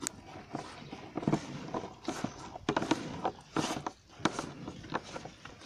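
Cow being hand-milked into a steel bucket: jets of milk squirting into the pail in an irregular run of spurts from two milkers' hands.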